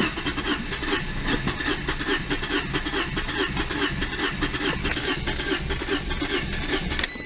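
Fiat 500 starter motor cranking the engine in an even rhythmic churn without it firing. The owner traced the no-start to an eight-year-old, failing battery. The cranking stops near the end, followed by a short high electronic beep.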